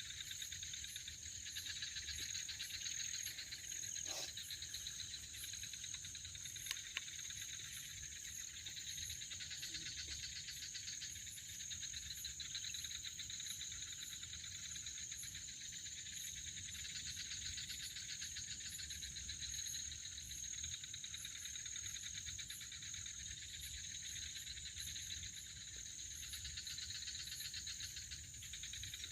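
Night chorus of crickets and other insects: a steady high chirring with a faster, evenly pulsing trill above it, and two faint clicks about four and seven seconds in.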